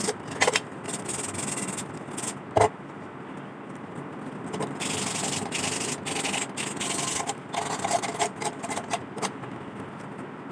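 Sandpaper being rubbed by hand over the rusty metal of an old lantern, a steady rasping scrape to remove the rust, with two sharp knocks in the first few seconds.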